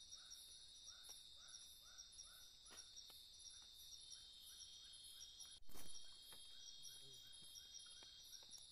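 Faint night chorus of forest insects: a steady high-pitched drone with a faster pulsing trill above it. In the first few seconds an animal gives a run of short repeated chirps, about three a second, and about two-thirds through there is a single sharp knock.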